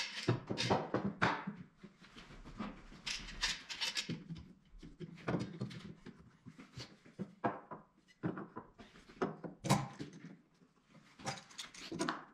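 Bar clamp being slid onto and tightened against a wooden workbench frame: a string of irregular clicks, knocks and scrapes of metal and wood.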